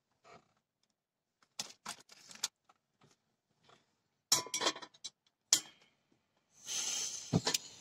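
Metal frying pan being turned and shifted on the pan support of a portable gas stove: scattered scrapes, then a cluster of sharp metallic clinks. Near the end a steady hiss starts, with one knock.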